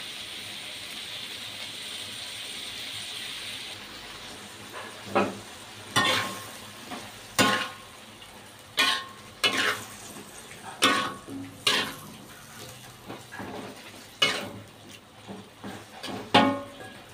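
Mussels and petai stir-fry sizzling in a wok with a steady hiss. From about five seconds in, a metal spatula scrapes and knocks against the wok in irregular strokes, roughly one a second, as the food is stirred.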